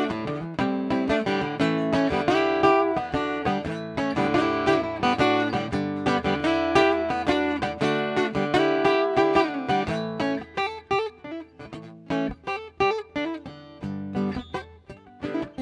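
Acoustic stringed instrument played solo in an instrumental break between choruses: full strummed chords that thin out to softer, sparser picked notes for the last few seconds.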